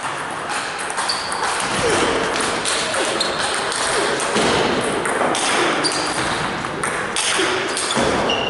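Table tennis rally: the ball clicking back and forth off the bats and the table in quick succession, with voices in the background.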